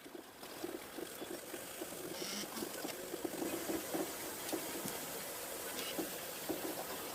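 3D printer running, its motors giving a busy stream of short, uneven pulses over a steady hiss; the sound grows louder over the first couple of seconds.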